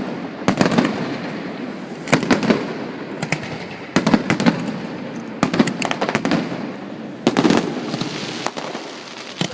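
Fireworks display: volleys of sharp bangs and crackles about every one and a half seconds, each with an echoing tail.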